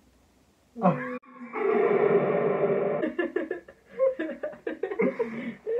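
Two people laughing: after a quiet first second, a short outburst, then a long drawn-out laughing cry, breaking into short choppy bursts of laughter.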